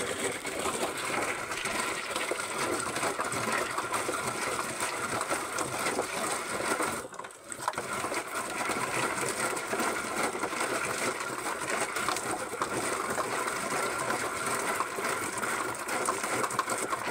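Hand-cranked manual coffee pulper running steadily, its drum rattling and churning as fresh coffee cherries and poured water go through it, with a brief break about seven seconds in.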